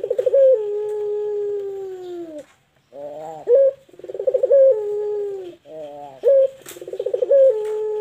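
Barbary dove (puter) cooing: three calls, each opening with a quick rolling stutter and ending in a long drawn-out note that sinks slowly in pitch, the first already under way at the start.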